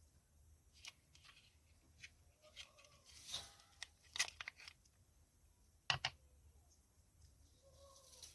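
Faint handling noises: a scattering of sharp clicks and short rustles, the loudest a cluster a little past four seconds in and a single sharp click about six seconds in.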